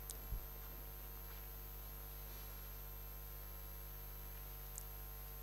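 Faint steady electrical hum with room noise, a soft low thump just after the start and a tiny tick near the end.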